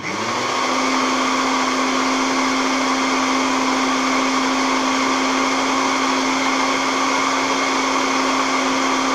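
Countertop jug blender switched on, its motor spinning up quickly and then running at a steady high speed with a constant hum, emulsifying the last of the oil into mayonnaise.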